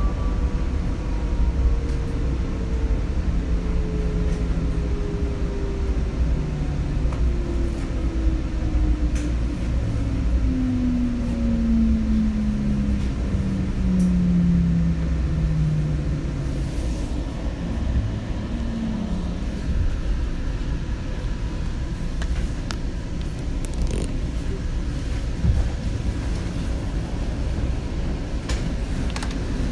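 Seattle Link light rail train running with a steady low rumble, its motor whine falling slowly in pitch over about twenty seconds as the train slows, leaving only the rumble.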